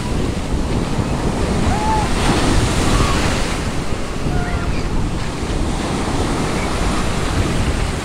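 Small waves breaking and foaming in over a sandy shore, with wind rumbling on the phone's microphone; one wave breaks louder about two to three seconds in.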